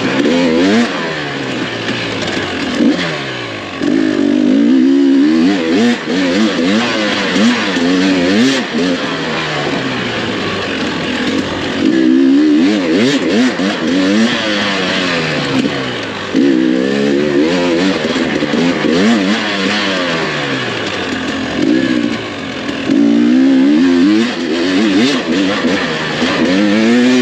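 GasGas EC300 two-stroke dirt bike engine being ridden hard, its pitch rising and falling over and over as the rider opens and shuts the throttle and shifts, with several louder wide-open pulls.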